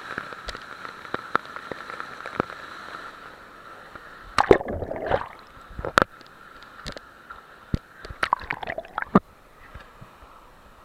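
Water sloshing and gurgling close to the microphone, in two bursts about four and eight seconds in, with scattered sharp clicks over a faint steady high hum.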